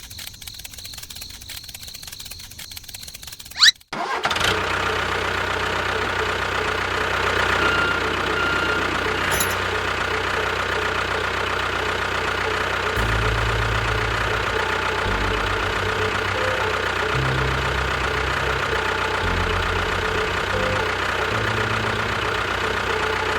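Crickets chirp faintly. About four seconds in, a small motor or engine starts abruptly after a click and then runs steadily, its low hum shifting in pitch now and then.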